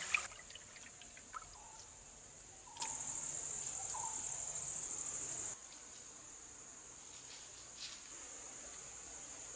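Crickets chirping in a steady, high-pitched drone, louder for a couple of seconds in the middle, with one sharp click just at the start.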